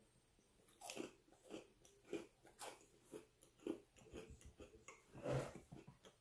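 A person biting and chewing a crispy chocolate-coated waffle cookie: a run of short crunches about two a second, the loudest a little after five seconds in.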